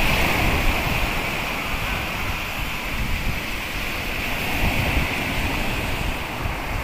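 Sea waves breaking and washing onto the shore in a steady rush, with wind rumbling on the microphone.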